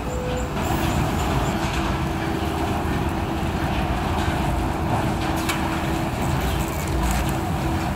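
Bag conveyor line running: steady machinery noise with a steady hum, and a few faint clicks.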